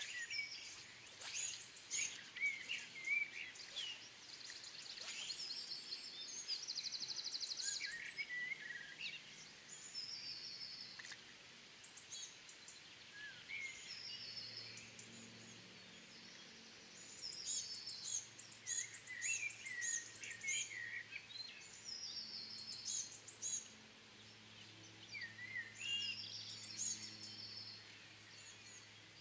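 Several songbirds singing, with overlapping chirps and trills. A faint low hum joins them from about halfway.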